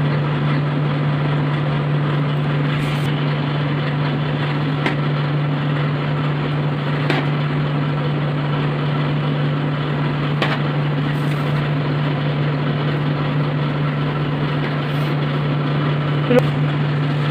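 Steady machine hum with a constant low drone, like a running fan or motor. A few faint clicks come through as a knife is pressed down to score a sheet of set dark chocolate.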